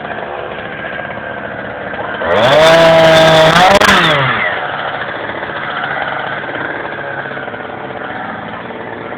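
Chainsaw engine running at idle, revved hard once for about two seconds a little over two seconds in: the pitch climbs, holds high and then falls back to idle.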